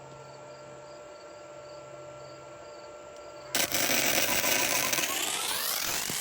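Yeswelder Flux 135 Pro welder humming, then about three and a half seconds in the flux-core MIG arc strikes and crackles steadily. A whine rising in pitch joins the crackle near the end.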